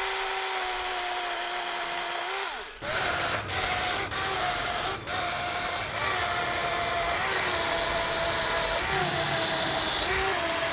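DeWALT 20V MAX 12-inch brushless cordless chainsaw running with a steady electric whine. After about three seconds it starts cutting through a pecan limb, and the sound turns rougher. The whine breaks off briefly a few times, and the pitch dips now and then as the chain bites into the hardwood.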